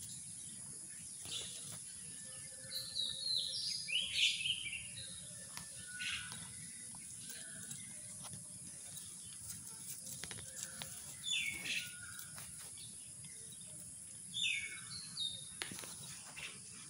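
Birds chirping in short bursts, in a few clusters, over a steady high-pitched background hiss.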